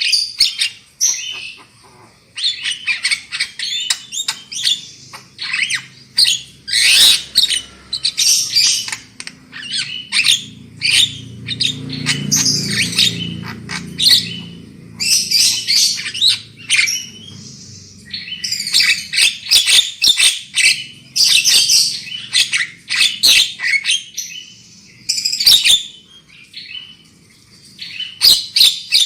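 Javan myna (jalak kebo) chattering loudly in rapid runs of calls broken by short pauses. It is a lure song meant to set caged mynas singing. A faint low rumble sits underneath for a few seconds partway through.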